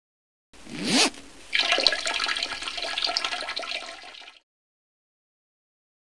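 Logo sound effect: a rising whoosh, then about three seconds of rushing, crackling noise that cuts off abruptly.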